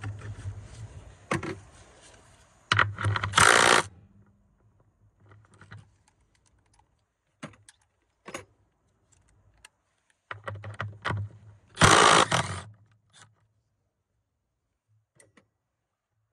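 Clicks, clinks and rattles of hands handling a car battery and its hardware in the engine bay. Two louder scuffs of about a second each come about 3 s and 12 s in, and the sounds trail off near the end.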